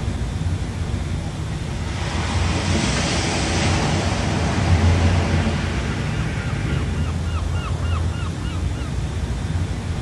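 Wind rumbling on the microphone, swelling into a louder rush for a few seconds in the middle. Near the end a bird gives a quick run of short chirps, about four a second.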